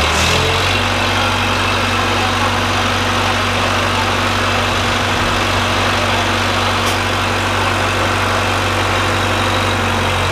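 A heavy diesel engine idling steadily, settling into an even idle about half a second in.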